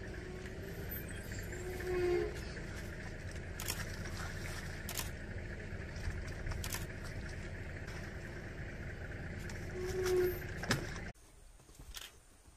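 Steady low rumble of an idling vehicle engine, with a few short clicks and faint tonal blips over it. About eleven seconds in it cuts off suddenly to a much quieter outdoor background.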